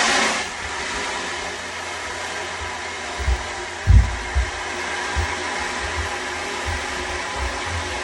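An ocean drum's beads wash in a swell that fades within the first half second, over a steady hiss with faint ringing tones from a sound bowl. From about three seconds in come dull low thumps of children running upstairs, the loudest near four seconds, which sound like a heartbeat.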